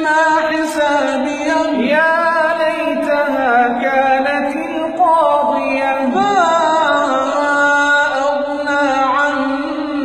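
Two men's voices in melodic Quran recitation (tajweed), drawing out a long melismatic passage without a break. The pitch winds up and down over a steadier, lower held note.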